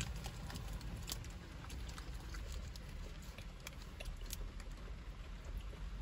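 Rain falling on the car, heard from inside the cabin: scattered, irregular drop taps over a low steady rumble.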